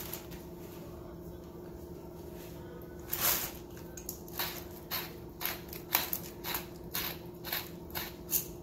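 Twist pepper mill grinding black pepper: a run of short gritty crunches, about two a second, starting about three seconds in, over a steady low hum.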